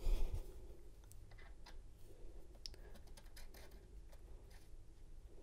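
Faint, scattered small metallic clicks and taps of a key-cutting machine's cutter bit being handled and pushed up into its spindle holder, after a soft thump at the start.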